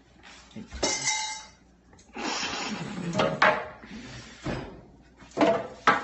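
A cardboard box and its packing being handled while a microwave is lifted out: scraping and rustling with several knocks, the sharpest one near the end.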